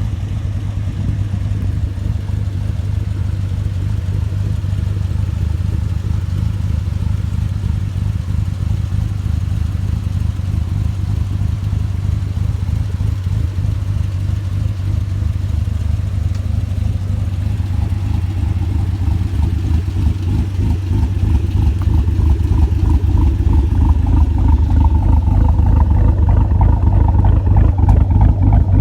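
Supercharged 6.2-litre V8 of a cammed 2013 Camaro ZL1 idling with a choppy, lumpy beat through a 3-inch stainless DD Customs valved cat-back exhaust. It grows gradually louder over roughly the last ten seconds.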